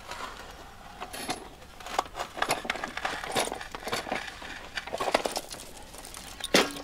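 Steel hand truck and its chain rattling and clinking as it is pulled out from under a propped-up boulder: a string of irregular small metallic knocks, with one sharp clank near the end.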